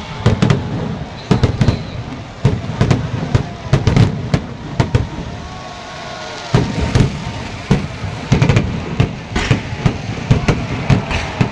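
Fireworks going off: a rapid, irregular string of sharp bangs and crackles, easing briefly about six seconds in before picking up again.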